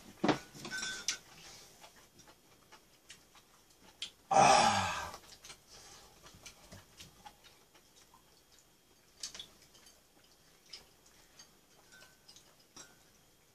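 Chopsticks clicking against a small ceramic bowl during eating, in scattered light taps. About four seconds in comes one loud, short vocal sound that falls in pitch over about a second.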